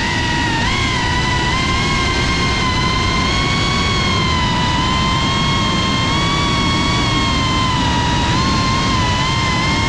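FPV quadcopter drone's motors and propellers whining loudly, holding a nearly steady pitch with small wavers as it cruises.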